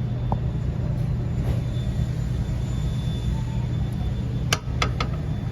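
Beer refrigerator's refrigeration unit running with a steady low hum, its condenser fan motor failing: the owner says it sticks and no longer turns. A few sharp clicks about four and a half seconds in.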